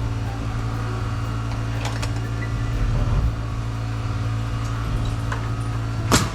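A sharp hammer blow on roof framing near the end, and a fainter knock about two seconds in, over steady background music.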